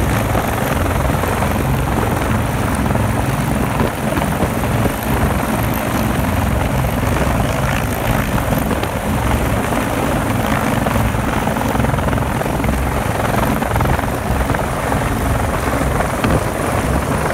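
Fire department rescue helicopter hovering close overhead for a hoist, its rotor and engine running loud and steady.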